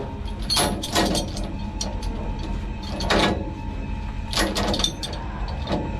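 Truck diesel engine idling steadily, with about five short metallic clanks and rattles spread through it.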